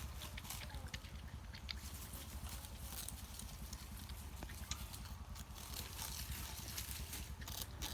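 Porcupine gnawing and chewing little bamboo stems: irregular crisp crunches and clicks, over a steady low hum.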